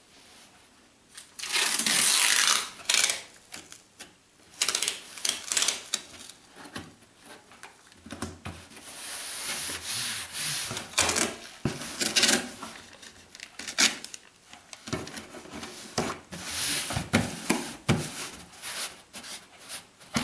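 Cardboard boxes being handled and put together: irregular rubbing, scraping and rustling of cardboard, with a few light knocks.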